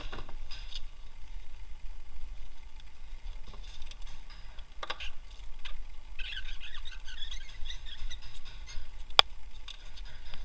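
Plastic air box and rubber intake hose being wiggled and worked loose by hand: a few light knocks, then a scratchy rubbing of rubber on plastic from about six seconds in, and a sharp click near the end.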